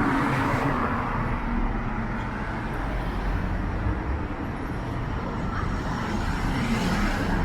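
Steady downtown street noise, mostly car traffic passing on the road.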